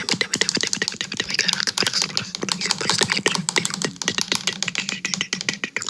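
Rapid, irregular tapping and clicking right at a microphone, many clicks a second like fast typing, over a low steady hum.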